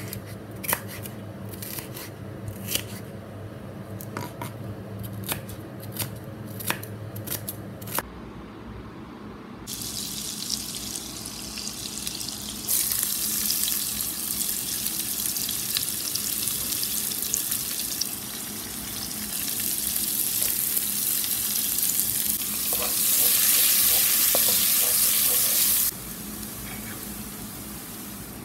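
A knife chopping green bell pepper on a wooden cutting board, about ten sharp taps. Then diced red onion sizzling in melted butter in a pan, the sizzle growing louder and dropping suddenly to a quieter sizzle near the end.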